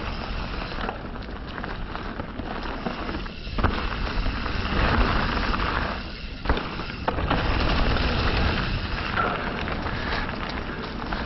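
Mountain bike being ridden over a dirt jump trail: a steady rush of tyre noise and wind on the camera microphone, with a dense crackle and a few sharp knocks from the bike over the ground.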